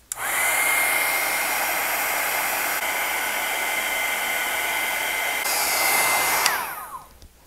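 Close To My Heart embossing heat tool blowing hot air to melt embossing powder: a steady rush of air with a high fan whine. It starts up right away and, near the end, is switched off, the whine falling in pitch as the fan winds down.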